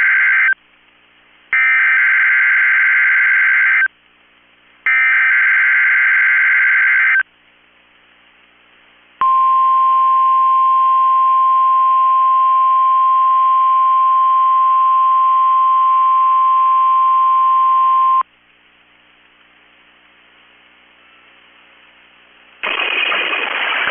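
Emergency Alert System SAME header on NOAA Weather Radio: three bursts of warbling two-tone digital data, the first already underway, each a little over two seconds with about a second's gap, then the 1050 Hz weather radio warning alarm tone held steady for about nine seconds, the signal that sets off alert-ready weather radios, here for a Required Weekly Test. After a few seconds of faint hiss, a synthesized announcer voice starts near the end.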